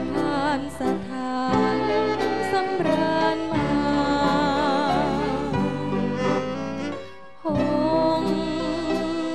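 A woman singing a slow Thai song with wide vibrato on long held notes, over a band accompaniment. The music drops away briefly about seven seconds in, then the singing picks up again.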